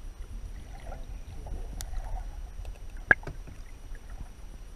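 Muffled water sound picked up by a GoPro in its waterproof housing held underwater: a steady low rumble with scattered faint clicks, and one sharp click about three seconds in.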